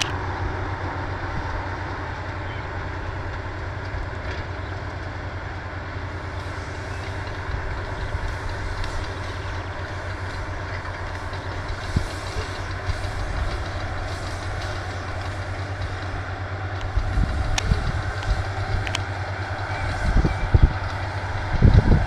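Tractor engine running steadily as it pulls a Feraboli Trotter Omnia baler-wrapper combination through the field, with faint clicks and a few heavy knocks near the end.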